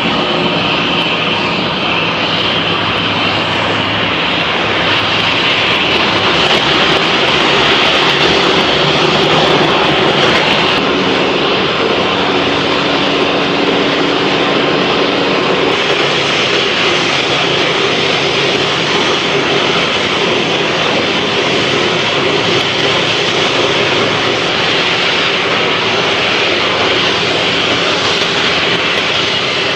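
Jet airliner engines running loud and steady, swelling slightly about ten seconds in and then easing a little.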